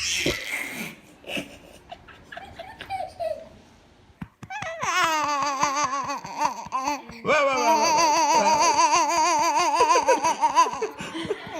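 Baby laughing: a few short giggles at first, then about four seconds in a long run of rapid, pulsing belly laughter.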